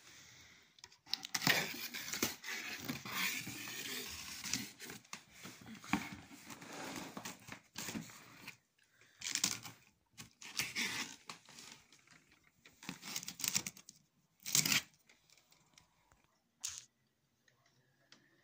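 Packing tape being torn off a cardboard shipping box: a long run of irregular ripping and scraping with cardboard rustling, then a few shorter rips and one sharp last rip near the end.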